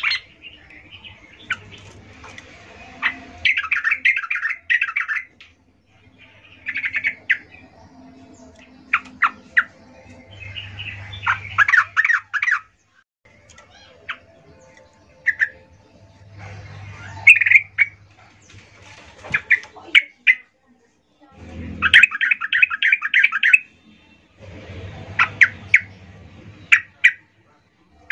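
Female yellow-vented bulbul (trucukan) calling in short bursts of rapid, chattering notes, with single sharp notes between them and brief pauses, repeated throughout: the call a hen gives to draw a male.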